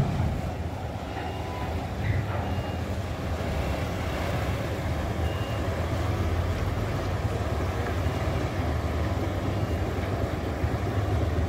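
Hyundai Universe coach's diesel engine running under load as the bus pulls slowly up a ramp: a steady low rumble. A few brief, faint high beeps sound in the first half.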